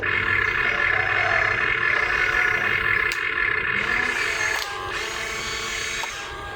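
Small electric gear motors of RC construction vehicles whining steadily, dropping in level about two-thirds of the way through.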